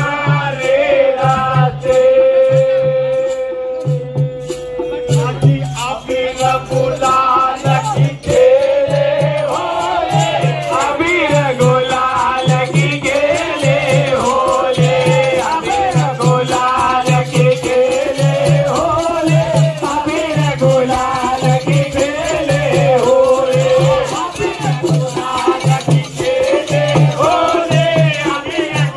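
Holi phag folk song: group singing over a steady, repeating low drum beat and continuous shaken, jingling hand percussion.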